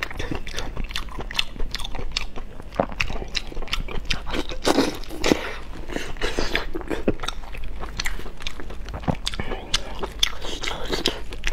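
Close-miked mouth sounds of someone eating soft braised meat: irregular wet chewing, lip smacks and clicks, busiest about halfway through.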